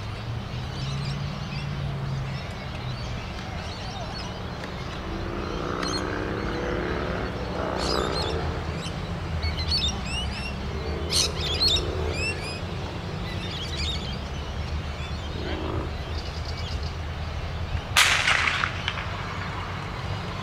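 Birds chirping on and off over a steady low outdoor rumble. About 18 s in, a single sharp crack, the start signal for a sprint from the blocks.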